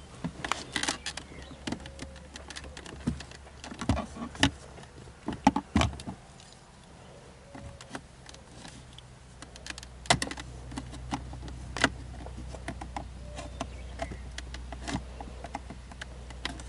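Irregular plastic clicks, taps and knocks of a car's dashboard trim panel being pried and worked loose from its retaining clips by hand. The clicks are scattered, with the loudest about five and a half, ten and twelve seconds in.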